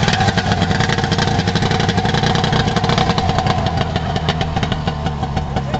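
Snowmobile engine in a golf cart running under power as the cart drives off over dirt, a steady fast-firing engine note that grows slightly fainter as it pulls away.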